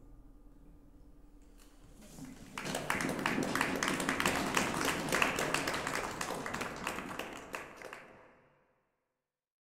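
Audience applauding, starting about two and a half seconds in after a short hush and fading away near the end.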